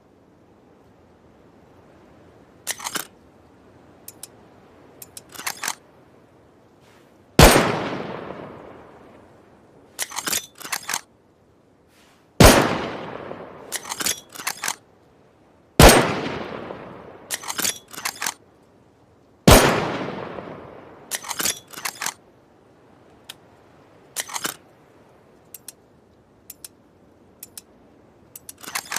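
Makeshift bolt-action rifle sound effect: four gunshots, each with a long fading echo, a few seconds apart. Between them come quick clusters of metallic clicks as the bolt is worked.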